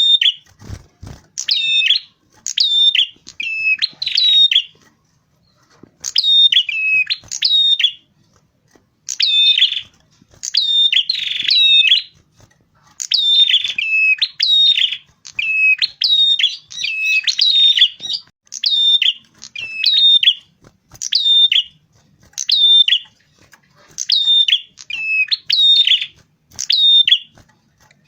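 Prenjak kepala merah, a small cisticolid warbler, singing loudly in rapidly repeated short phrases of sharp, high chirping notes, about one phrase a second with brief pauses. This is vigorous ('gacor') song used as a lure call for trapping.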